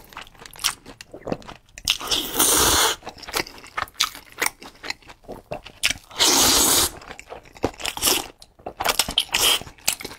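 A person eating noodles: two loud slurps of about a second each as mouthfuls of noodles are sucked in, the first about two seconds in and the second just past the middle, with wet chewing and lip-smacking clicks in between.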